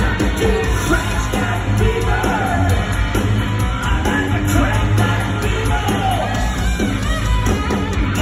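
Live rock band playing loud, with electric guitar, bass guitar and drums and a voice yelling and singing over them, recorded from the audience.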